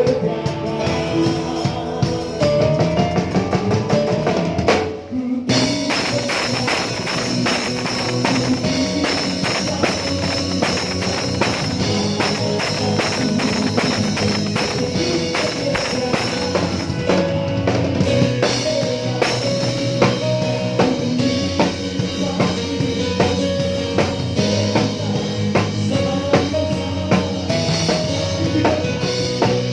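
Live band playing a worship song, with the drum kit prominent: bass drum and rimshots under keyboard and other instruments. The band breaks off briefly about five seconds in, then the drums come back in with a steady, busy beat.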